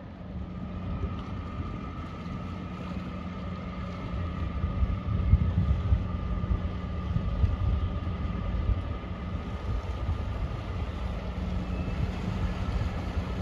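A car ferry's diesel engines running as it comes into port: a low rumble with a steady hum and a thin higher whine, swelling louder about four seconds in and easing off a few seconds later.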